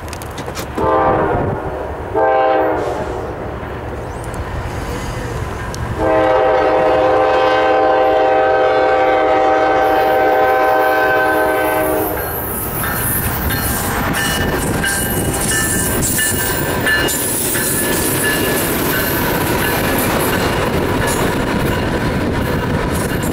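Freight locomotive's multi-tone air horn: two short blasts, then one long blast held about six seconds. The locomotives then pass close by with a steady heavy rumble of diesel engines and wheels on rail.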